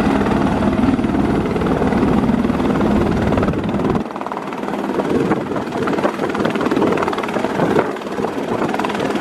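Helicopter hovering low and setting down on its landing skids, its rotor and engine noise loud and steady; the deepest rumble drops away about four seconds in.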